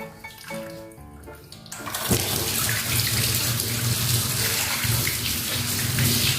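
Water running hard from a tap, starting about two seconds in after a short stretch of music.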